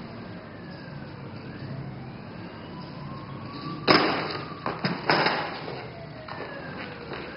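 Emergency-vehicle sirens wailing, their pitch sliding up and down. A few loud thumps land about four to five seconds in.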